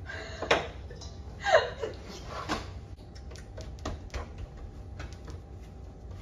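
Dough being kneaded by hand on a cutting board: soft pushes and a run of small clicks and taps, a few a second. In the first three seconds there are three louder short sounds about a second apart.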